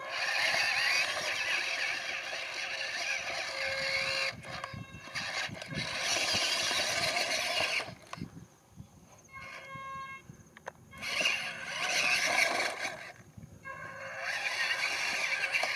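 Electric motors and gearing of a radio-controlled model tipper truck and its loading machinery whining in several bursts. A brief tone sounds during a pause of a few seconds about halfway through.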